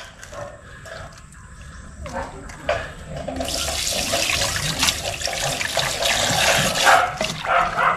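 Quiet knocks and handling of fish pieces in a steel bowl. About three and a half seconds in, a tap is turned on and water runs steadily from the spout into the bowl while hands rinse the cut fish under it.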